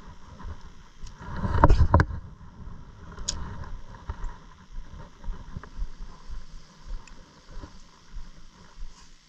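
Small waves lapping irregularly against the lake shore, with a louder rush and two sharp clicks about one and a half to two seconds in, and another click a moment later.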